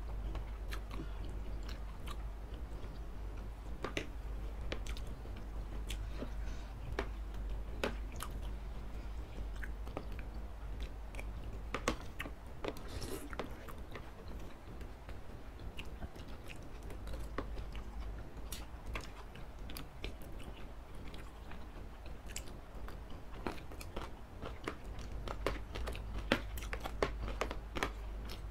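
Close-up eating sounds of noodles and satay in sauce: wet chewing, lip smacks and slurping of noodles, with many sharp little clicks of metal spoons and forks against a ceramic dish.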